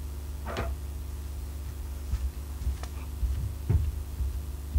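Quiet room tone: a steady low electrical hum, with a few faint clicks and knocks scattered through it.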